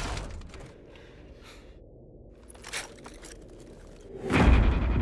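Film soundtrack: loud sound dying away, then a hushed stretch with a few faint scrapes and a click, then a sudden loud, deep boom about four seconds in.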